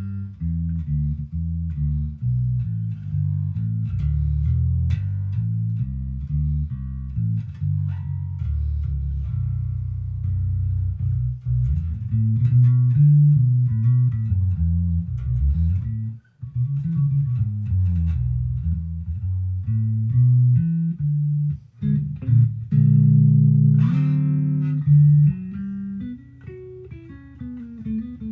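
Squier Bass VI six-string electric bass being played: a continuous line of low notes changing quickly, with two brief breaks past the middle.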